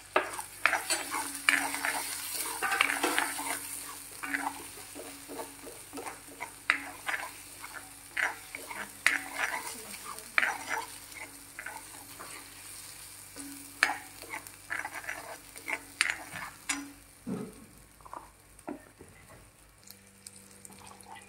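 A steel spatula stirring and scraping a spice paste frying in mustard oil in a coated kadai, with the oil sizzling. The sizzle is strongest in the first few seconds, and the scraping strokes come irregularly, thinning out near the end.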